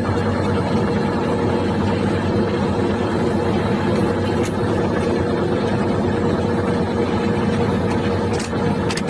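A vehicle engine running steadily with a low hum, with a few faint clicks midway and near the end.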